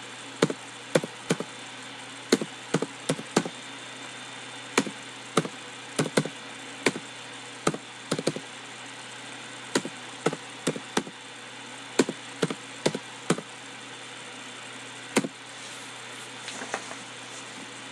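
Computer keyboard keystrokes: a number and a comma typed at a time, in short irregular runs of clicks with pauses between them, over a steady background hiss.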